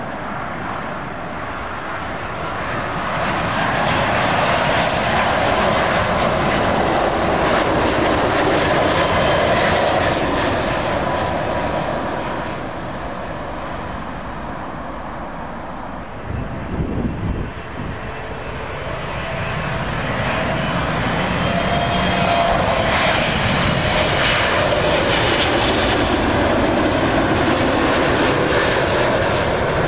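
Wide-body jet airliners on final approach passing low overhead, their engines a loud rumbling roar with a high whine, swelling twice: once a few seconds in and again after about twenty seconds. A brief rough rumble comes in the lull between them.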